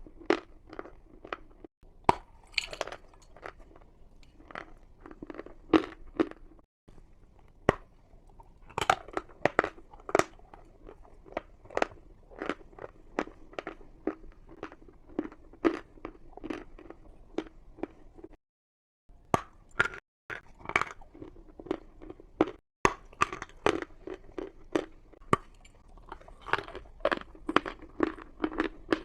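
Chalk being bitten and chewed right at the microphone: a dense run of sharp, crisp crunches, several a second, broken by a few abrupt cuts.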